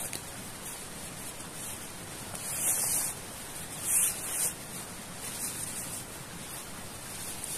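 Nylon fabric rustling as padded bedding is pulled out of a stuff sack, loudest in two bursts about two and a half and four seconds in, over a steady hiss.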